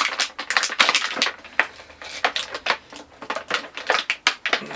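Action figure packaging being handled and opened: quick, irregular crackling and clicking of plastic and cardboard.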